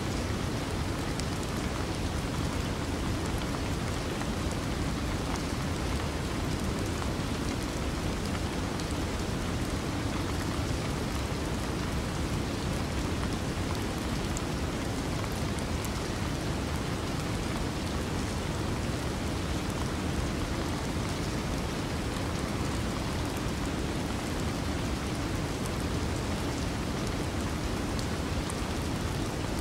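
A steady, even wash of noise, like rain, deepest in the low range, with faint scattered ticks and no change throughout.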